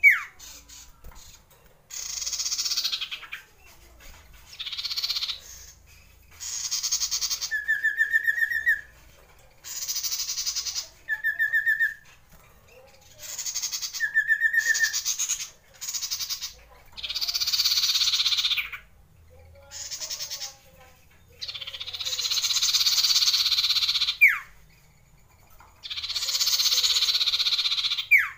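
Common iora singing a long rolling song: a series of rasping rolls, each one to two seconds long, with three short clear whistles in the middle and quick downward-sliding whistles at the start and near the end.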